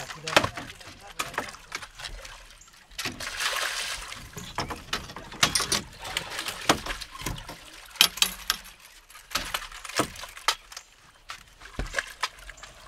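Water splashing and sloshing as a freshly caught fish is landed and handled at a fishing boat, with scattered sharp knocks and clicks.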